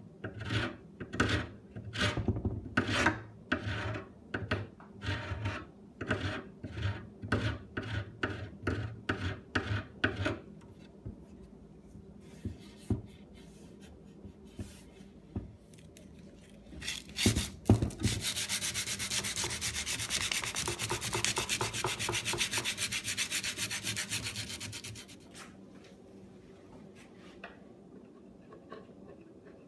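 Sharp chisel scraping hardened two-part putty overfill off an oak chair rail in quick repeated strokes, about two a second, for some ten seconds. After a pause come two sharper scrapes, then about seven seconds of steady scratchy rubbing.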